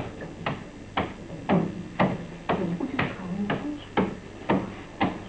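Blows landing on the body in pencak silat body conditioning, struck in a steady rhythm of about two a second.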